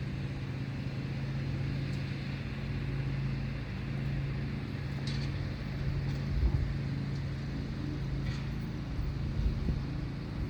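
A steady low mechanical hum, like an engine or motor running nearby, with a few faint knocks.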